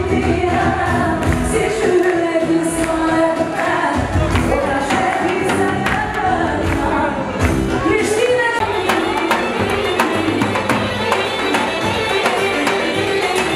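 Live Albanian pop music: a woman singing over a band, with a steady percussion beat that comes through more clearly in the second half.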